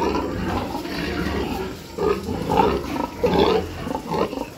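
Sows and gilts in their pens vocalizing in irregular bursts, loudest past the middle, over a steady low rumble.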